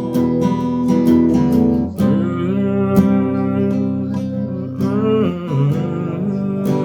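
Acoustic guitar strummed and picked in an instrumental break of a song. A melody line gliding up and down in pitch runs over it from about two seconds in to about five seconds in.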